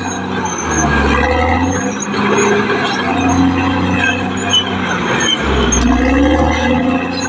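Caterpillar D6R XL bulldozer's diesel engine running steadily, with its low rumble swelling and easing several times as the load changes.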